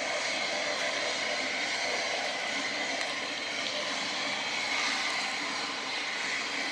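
Steady, even rushing background noise with no distinct strikes or calls.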